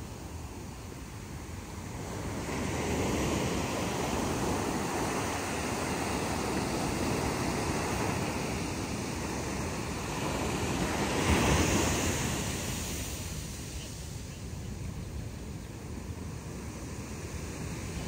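Small ocean waves breaking and washing up a sandy beach. The surf swells about two seconds in, is loudest near the middle as a wave comes in, then eases off as the wash recedes.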